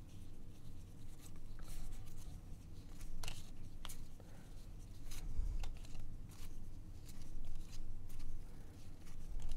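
A stack of Upper Deck baseball cards being leafed through by hand: card stock sliding and flicking over card, with irregular light ticks several times a second.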